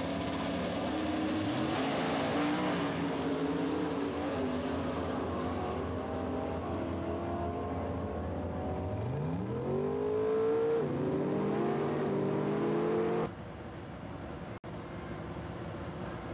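Naturally aspirated 598 cubic-inch Ford wedge-head V8 of a Pro Stock drag car running at full throttle down the strip, its pitch climbing and dropping back several times, with a sharp rising rev about ten seconds in. Just after thirteen seconds the sound cuts off suddenly to a quieter steady hiss.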